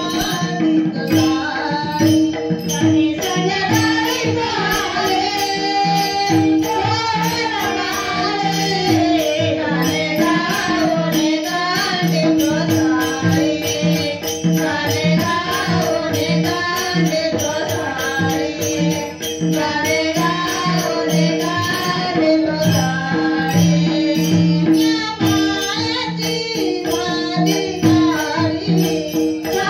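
A Marathi devotional gaulan sung by a bhajan group: a sung melody that wavers up and down over steady held instrumental tones, with even, rhythmic hand percussion.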